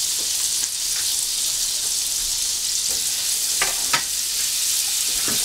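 Unsalted butter melting and sizzling in a hot stainless steel skillet of oil and browned turkey drippings on a high gas flame: a steady high frying hiss, with two sharp pops a little over three and a half seconds in.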